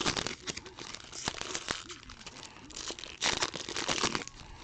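Plastic and foil trading-card pack wrappers being torn open and crinkled by hand, in quick rustling crackles with a louder burst about three seconds in.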